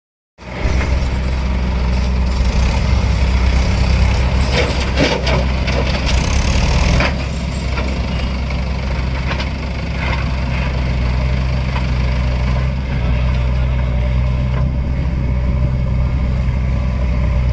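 Heavy diesel engine running steadily at low revs, with a cluster of clanks and a hiss about four to seven seconds in.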